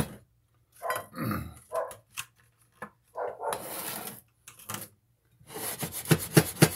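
Kitchen handling noises: a sugar canister's lid is set back on, then hands mix sugar into sliced strawberries in a glass bowl, with a quick run of clicks and taps near the end. About a second in there is a short low sound that drops in pitch.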